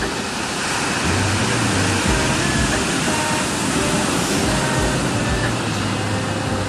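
Ocean surf washing steadily against the shore.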